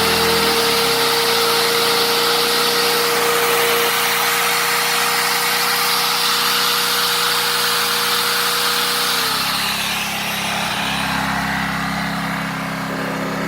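A small four-stroke petrol inverter generator runs under load from an electric router, whose motor whines steadily. About nine seconds in the router is switched off and winds down. The generator's engine note then changes as the load comes off.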